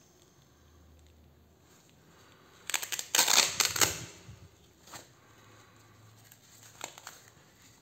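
Hook-and-loop (Velcro) fastener on the cuff of a Sanitas SBC 26 wrist blood pressure monitor being ripped open: a crackling tear starting about three seconds in and lasting about a second and a half, followed by two short, fainter rasps.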